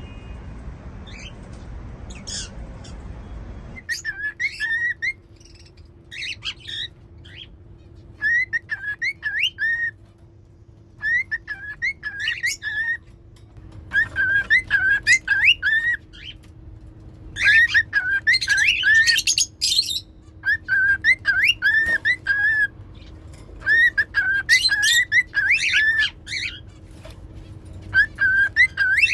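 Cockatiels whistling, starting about four seconds in: short phrases of rising-and-falling notes repeated in bursts with brief pauses between them, mixed with scratchy chattering in places.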